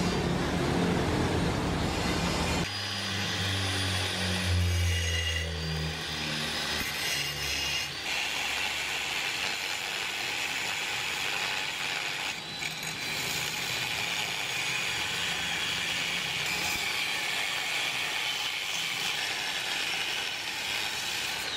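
Handheld angle grinder with a thin cut-off disc cutting a steel plate: a steady high whine over a hiss as the disc bites, taking over about a third of the way in. Before it, a low rumble, loudest a few seconds in, fades away.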